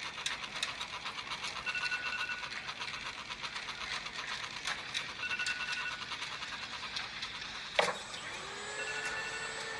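Phone alarm ringing: a fast, rhythmic tone pattern with a short two-note chime recurring every three to four seconds. About eight seconds in there is a sharp click, and a steady whine follows.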